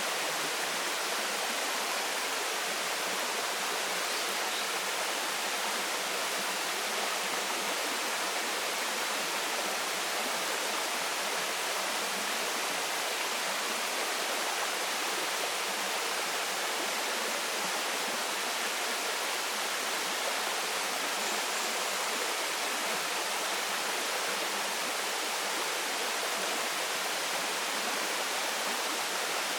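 Waterfall pouring steadily into its pool: an even, unbroken rush of falling water with no change in level.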